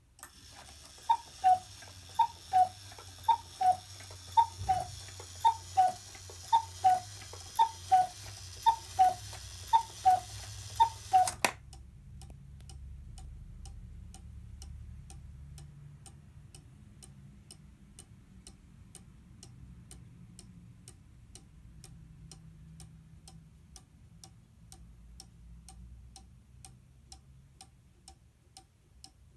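Tezuka cuckoo clock, model #161, calling the hour: about ten high-then-low two-note cuckoo calls, roughly one a second, sounded by its bellows and pipes over the whirr of the striking train. The calls stop abruptly about eleven seconds in, and the pendulum movement goes on ticking steadily.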